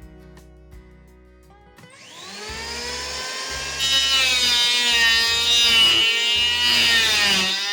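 An electric power tool's motor spins up with a rising whine, cuts into wood loudly for a few seconds, then winds down near the end, over background music.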